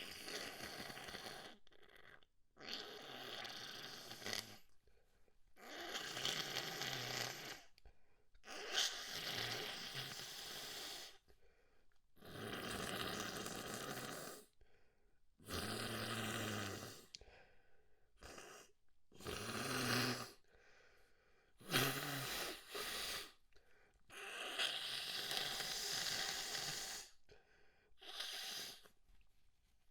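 A person blowing their nose over and over: about ten wet, snotty blows of one to three seconds each, with short pauses between. A few of them carry a honking tone.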